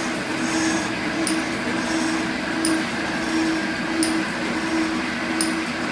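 Metal shaper running, its ram stroking back and forth as the tool cuts a 45-degree angle along a cast iron straight edge. A steady machine hum rises and falls with each stroke, and a sharp click comes about every one and a half seconds.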